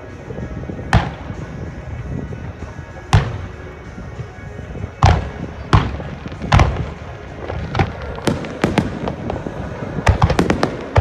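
Aerial fireworks shells bursting in the sky, single sharp bangs a second or two apart, then a fast string of crackling reports near the end, with music playing underneath.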